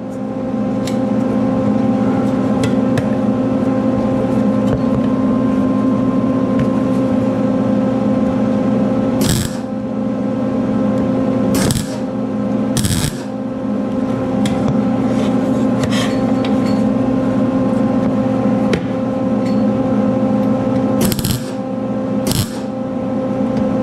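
MIG welder striking short tack welds on a sheet-steel motorcycle seat pan. Five brief bursts of arc: one about nine seconds in, two close together around twelve and thirteen seconds, and two more near the end, over a steady hum.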